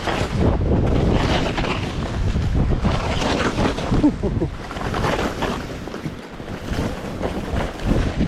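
Strong wind buffeting the microphone: a heavy, gusting rumble that swells and eases, dipping briefly about six seconds in.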